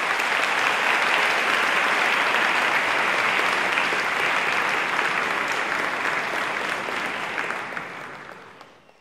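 Audience applauding at the end of a talk, swelling up quickly, holding steady, then dying away near the end.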